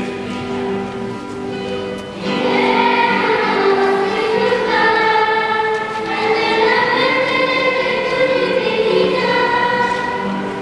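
Church hymn: a steady instrumental introduction, then a choir comes in singing with the accompaniment about two seconds in.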